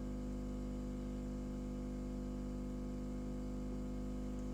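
Steady electrical hum made of many evenly spaced low tones, with a faint hiss underneath.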